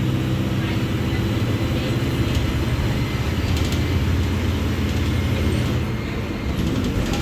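Mercedes-Benz OF-1721 Bluetec 5 bus diesel engine running, a steady low engine note that turns into a rougher rumble about halfway through and eases slightly near the end.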